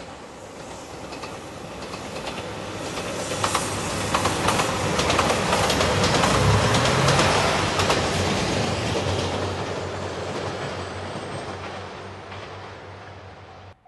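JR Shikoku 2700 series diesel express train in Anpanman livery passing close by. Its engine drones under wheel clatter over the rail joints, building to a peak about halfway through and then fading. The sound cuts off suddenly near the end.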